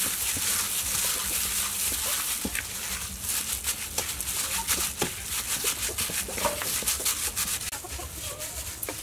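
Minced pork being mixed by a hand in a thin plastic glove in a stainless steel bowl: a quick run of wet squishing and crinkling of the glove. Chickens cluck a few times in the background.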